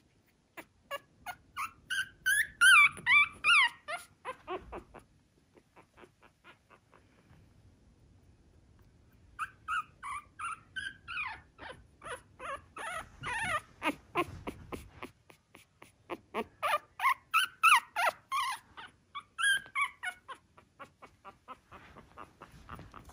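Young Shih Tzu puppy whimpering in rapid runs of short, high-pitched cries that bend up and down. There are two bouts, with a lull of a few seconds between them.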